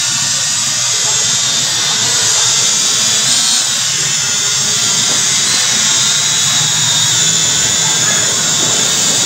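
Small quadcopter drone hovering close overhead, its four propellers and small electric motors making a steady high-pitched whine.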